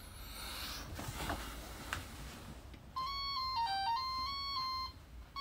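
Faint rustling and small clicks from handling small plastic parts and a circuit board. About three seconds in, a simple electronic tune of clean beeping tones starts, stepping up and down between notes. It breaks off briefly near the end.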